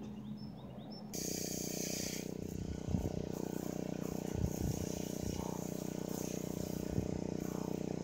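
Garden hose spraying water, with a steady mechanical hum that starts abruptly about a second in, a short hiss at its onset, and a few light knocks.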